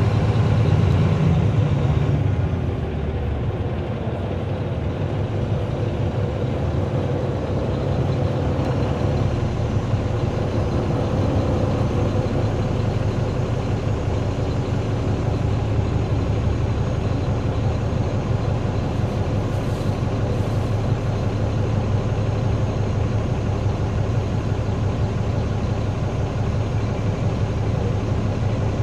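2009 NABI 416.15 transit bus's Caterpillar C13 ACERT diesel engine running, heard from inside the bus. The engine sound is louder for the first two seconds, then eases and holds steady.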